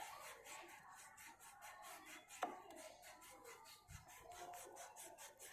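Faint, quick back-and-forth rubbing of a hand over a wet, rusty steel spoked wheel rim, scrubbing the rust off. One sharp click about two and a half seconds in.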